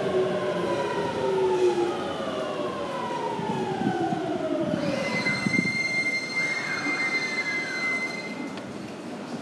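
Electric commuter train pulling into the station: its motor whine falls steadily in pitch as it slows, then a steady high-pitched brake squeal sounds for a few seconds as it comes to a stop.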